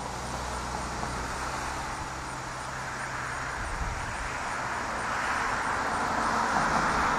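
Steady static hiss from a ham radio transceiver's receiver on the 20-metre SSB band, slowly growing louder. A low hum sits underneath for the first few seconds.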